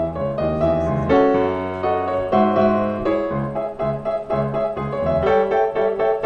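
Piano music, one note after another.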